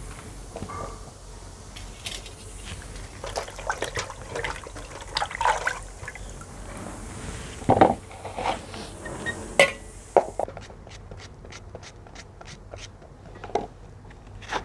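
Water splashing and dripping in a steel bucket as peeled bottle gourd is rinsed by hand, with scattered knocks and clinks of steel vessels; the loudest knock comes about eight seconds in.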